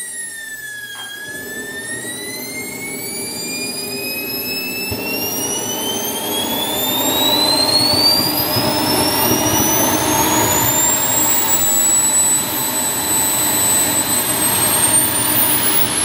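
Xicoy 195 RC jet turbine running: its high whine drops for about a second, then climbs steadily as the turbine spools up, growing louder about halfway through and holding briefly before rising again near the end.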